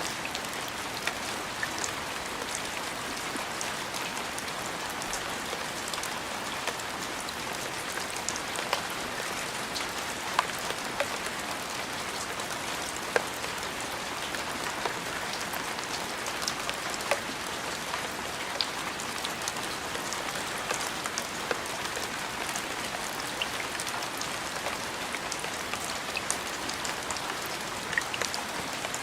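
Steady rain falling: an even hiss, with many scattered sharp ticks of individual drops striking a surface.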